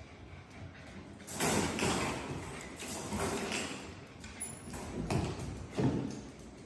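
Puppies scampering and scrabbling across a tiled floor, their claws clattering in quick irregular bursts that start about a second in.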